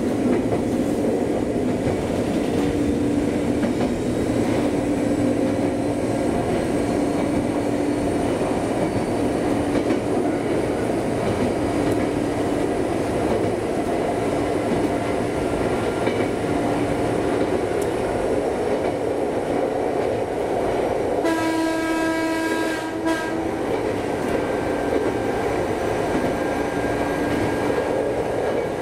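Ex-Eidan 3000-series electric train running along single track, heard from the front cab: steady running noise of wheels and motors. About 21 seconds in the train's horn sounds once, for under two seconds.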